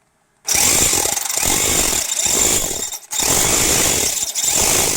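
Power drill boring into a broken, rusted steel bolt, drilling it out towards thread size. It starts about half a second in and runs in two long stretches with a brief pause at about three seconds.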